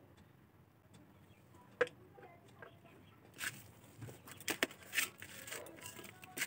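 Faint scattered clicks and taps from handling a bottle of cooking oil and food by hand: one sharp click about two seconds in, then a run of small clicks from about three and a half to five and a half seconds in.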